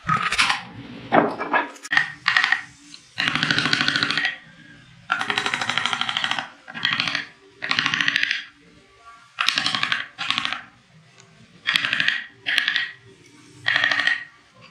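Hand-pushed wood carving gouge cutting into wood, a dozen or so scraping strokes, each under a second, with short pauses between.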